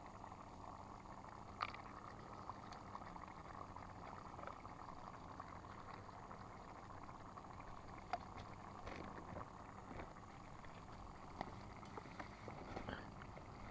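Paneer gravy simmering in a pan on a camping gas stove: a faint, steady bubbling hiss, with a few light clicks and knocks.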